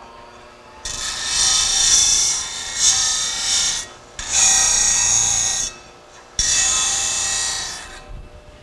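A metal bar ground against the sanding disc of a Baileigh DG-500HD 20-inch disc grinder: harsh rasping in three passes, the first about three seconds long and two shorter ones after it, with the machine's quieter running hum in the gaps.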